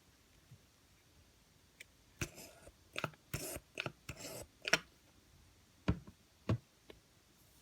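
Slime being pressed and squished by hand, giving a run of sharp pops and short crackly squishes starting about two seconds in, then two sharper taps near the end.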